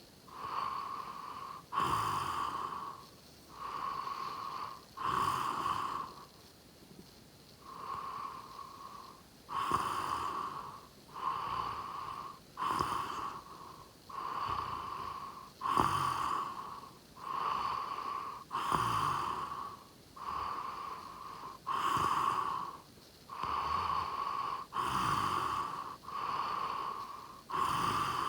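A sleeping person snoring. A low rattling snore alternates with a whistling breath, and every breath carries a steady whistle-like tone, about one full breath every three seconds. The breathing pauses briefly about six seconds in.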